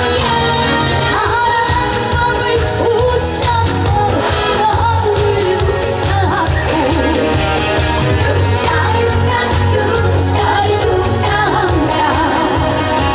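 Live trot song over loudspeakers: a woman singing with a wavering vibrato over an amplified band backing with a steady drum beat and heavy bass.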